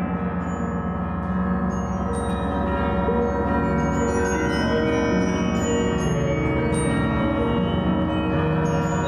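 Church bells ringing: several bells struck again and again, their strikes overlapping into a dense, steady peal of long ringing tones.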